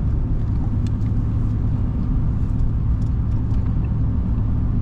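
Steady low drone of a truck driving, engine and road noise heard from inside the cab, with no change in pitch or level.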